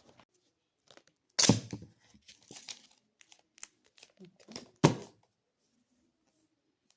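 Product packaging being opened, crinkling and tearing. A loud rustle comes about a second and a half in, then scattered crackles, then one sharp loud crackle just before five seconds.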